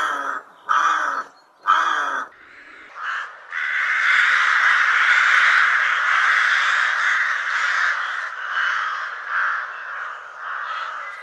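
Rooks cawing: three harsh, rasping caws about a second apart, then, from about three and a half seconds in, a long unbroken stretch of harsh, overlapping cawing that slowly fades.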